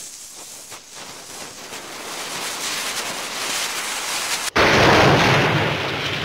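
Dynamite sound effect: a lit fuse hissing and growing louder for about four and a half seconds, then a sudden loud explosion.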